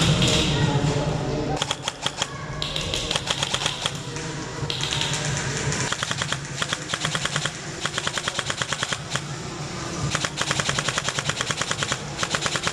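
Airsoft rifles firing in repeated full-auto bursts: rapid, evenly spaced mechanical clicking, about seven bursts each lasting around a second.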